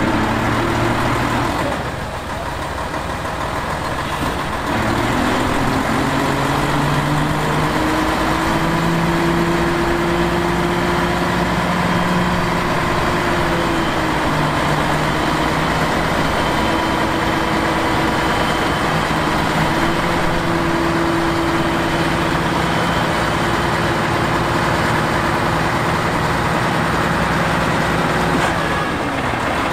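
Heavy diesel engine of earthmoving machinery running, its engine speed changing a few times: it dips about two seconds in, picks up again around five seconds in, and shifts again near the middle and near the end.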